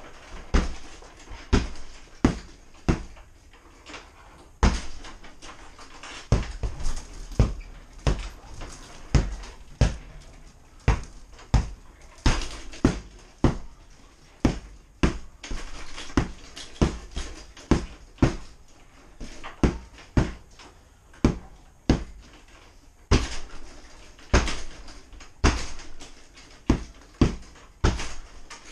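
Repeated sharp strikes on a hanging heavy punching bag, one or two hits a second with short pauses between combinations.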